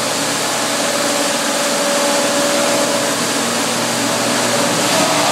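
Automatic car wash running: a steady, loud hiss of high-pressure water spray with a steady machine hum underneath.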